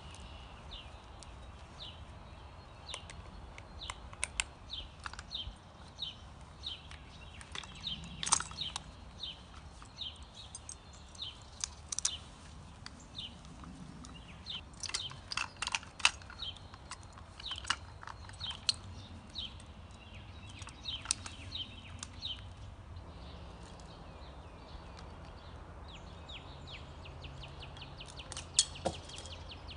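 A small bird chirping over and over, about two short high chirps a second, with a few sharp clicks now and then and a steady low hum underneath.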